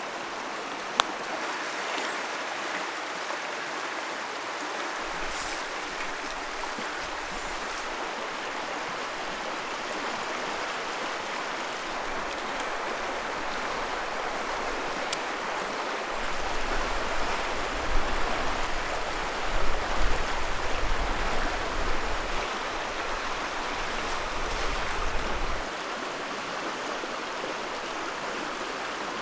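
Steady rushing of a river flowing over shallow riffles. For about ten seconds past the middle, a low rumble with irregular bumps rides over the water.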